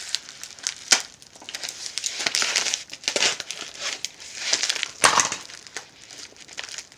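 Packaging being crinkled and torn open by hand, with irregular crackling and two sharper snaps, about a second in and about five seconds in.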